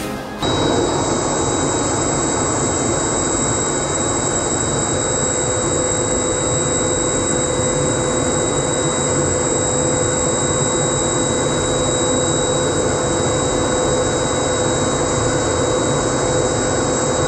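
Steady noise inside a Dassault/Dornier Alpha Jet cockpit in flight: its Larzac turbofan engines and the rushing airflow, with a steady high whine. A lower hum joins about five seconds in. The noise cuts in suddenly about half a second in.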